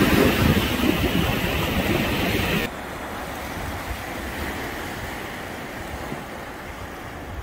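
Surf breaking and washing up the beach, with wind on the microphone. It is louder for the first couple of seconds, then drops suddenly to a quieter, steady wash.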